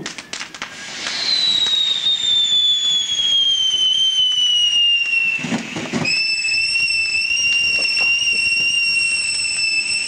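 Whistling firework: after a few crackles, a high whistle slides slowly down in pitch for about four seconds. It breaks off briefly a little after five seconds, then a second, steady whistle holds to the end.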